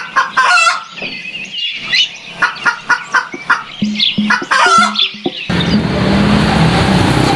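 Chickens clucking and calling in short repeated calls. About five seconds in this gives way abruptly to the steady running noise of a motor scooter being ridden.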